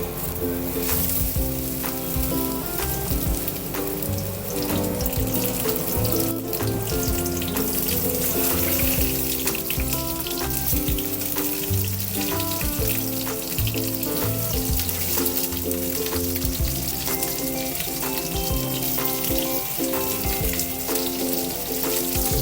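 Food sizzling as it fries in a pan, a steady crackle, under background music with a steady beat.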